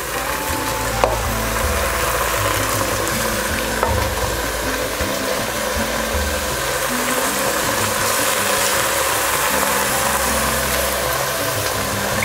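Soaked, drained rice poured into hot ghee and oil in an aluminium pressure cooker, sizzling steadily as it starts to fry, with a ladle stirring. A sharp click about a second in.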